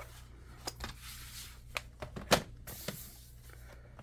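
A few light clicks and knocks from handling a laptop and tools on a workbench, with some rustling between them; the loudest knock comes about two and a half seconds in.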